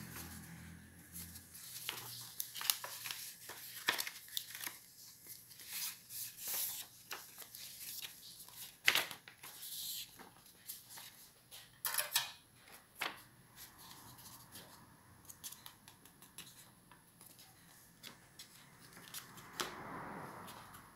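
Sheet of black paper being handled and folded by hand: irregular crackles, rustles and sharp crisp snaps as it is creased. Near the end, scissors start cutting into the folded paper.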